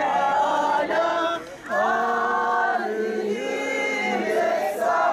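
A crowd of many voices chanting in unison in long drawn-out phrases, with a brief break about a second and a half in.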